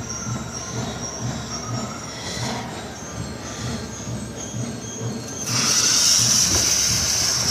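A firework burning with a loud, high-pitched hissing squeal that starts suddenly about five and a half seconds in and keeps going, after a quieter stretch.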